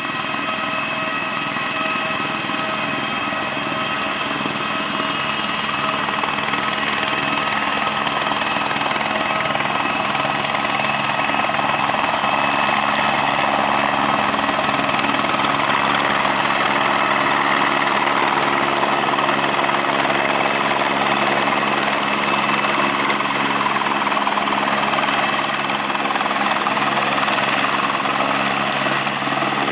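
Aircraft engines running steadily, several held tones over a rushing noise, with a high whine that grows stronger in the second half as the sound slowly gets louder.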